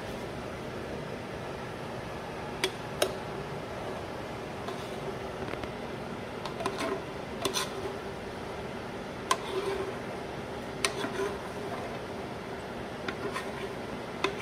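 Metal spoon scraping and clinking against the side of a metal saucepan as thick cheese sauce is poured out onto macaroni in a foil pan: scattered sharp clicks every second or few seconds over a steady background hum.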